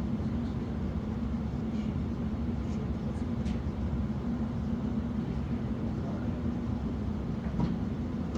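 A steady low mechanical rumble with a constant hum, with a few faint clicks.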